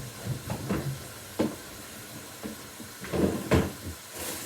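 Kitchen clatter: several short knocks and thumps over a faint steady hiss.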